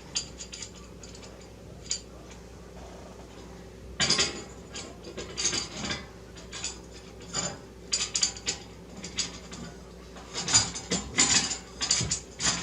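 Small metal parts clicking and clinking as brackets and fasteners are fitted to grooved frame rails. There are a few faint ticks at first, then from about four seconds in, irregular runs of sharp clicks.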